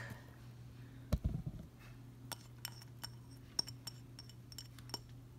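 Light clinks and taps of a small dish and utensil against an Instant Pot's inner pot as minced garlic is scraped in over diced radish, scattered over several seconds, with one soft thump about a second in.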